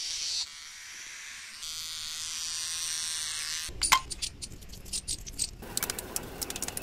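Mi beard trimmer's electric motor buzzing steadily. About three and a half seconds in it gives way to a run of sharp clicks and clinks, with splashing, as the blade head is rinsed and handled.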